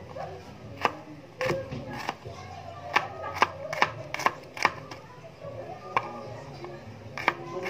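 Kitchen knife chopping garlic cloves on a cutting surface: about ten sharp, irregularly spaced knocks as the blade strikes through, with music playing underneath.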